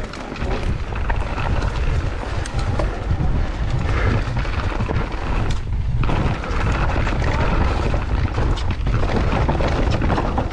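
Wind buffeting the microphone on a fast mountain-bike descent, with a dense rattle of knocks from the bike and its tyres running over rough ground.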